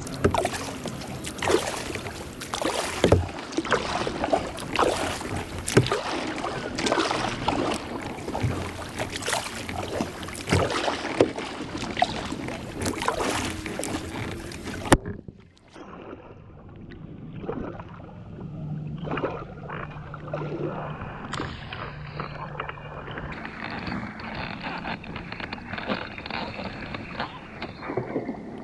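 Kayak on a river: water splashing and slapping against the plastic hull with irregular sharp splashes. About halfway through it gives way to softer water lapping as the kayak comes in to a sandy bank.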